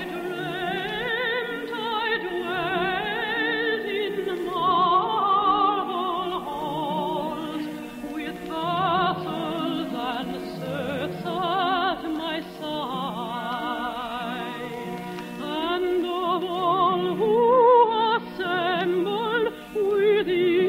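Operatic singing with wide vibrato over a sustained orchestral accompaniment.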